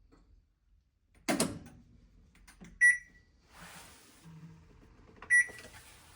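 A loud thump, then two short electronic beeps about two and a half seconds apart from a Panasonic top-loading washing machine's control panel as it is operated.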